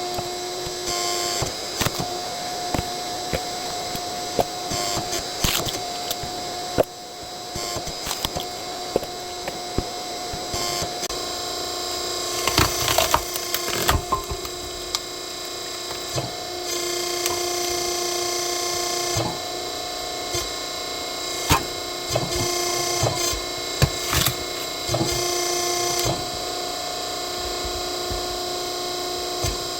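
Hydraulic log splitter running with a steady hum, its tone shifting now and then under load, while logs crack and snap sharply again and again as they are split.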